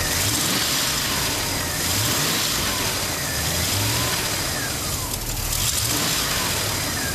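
Holden HDT VC Brock Commodore's 5.0-litre V8 running just after start-up, revved again and again so its pitch keeps rising and falling.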